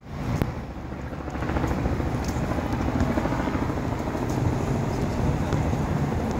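Steady low engine rumble of urban street traffic, with a few faint ticks.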